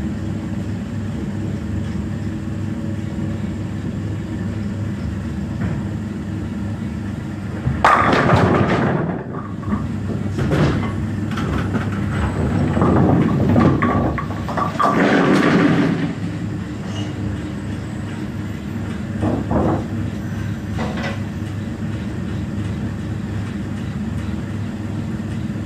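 Bowling string-pinsetter machinery at the pin deck running with a steady mechanical din. A stretch of loud, uneven clattering of pins and machinery comes from about eight to sixteen seconds in.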